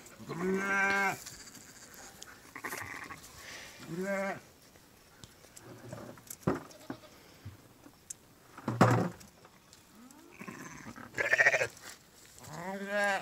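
Sheep bleating several times: a long wavering bleat at the start, a short one about four seconds in, and more near the end. A single sharp knock about nine seconds in is the loudest sound.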